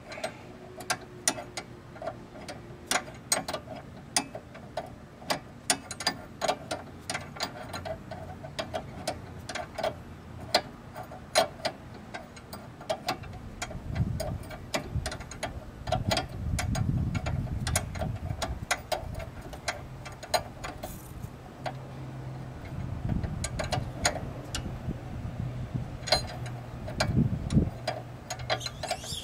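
Hand ratchet clicking in quick, uneven runs as a nut on the front suspension behind the brake caliper is turned. A low rumble comes and goes from about halfway through.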